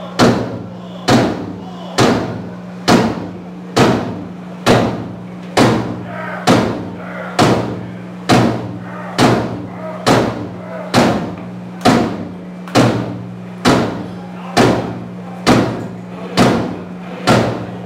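Live heavy rock band playing a slow, pounding beat: a big drum hit a little under once a second, each ringing out, over a steady held low bass drone.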